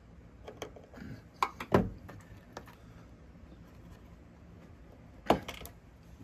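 Metal clicks and knocks as the pin of a VW Beetle's door check strap is worked up and out of the strap: a few light ticks, two sharp knocks about a second and a half in, and another sharp click near the end.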